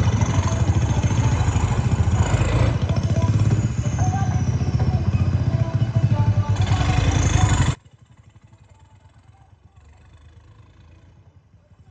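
Heavy diesel engine running close by with a steady low rumble, cutting off abruptly about eight seconds in.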